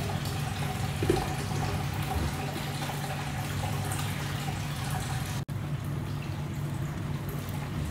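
Gravy simmering in a covered kadai on a gas burner: a steady watery bubbling over a steady low hum. About a second in, a glass lid is set on the pan with a light knock.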